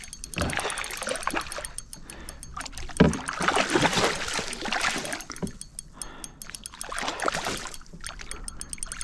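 Water splashing and sloshing in irregular bursts, with a sharper splash about three seconds in.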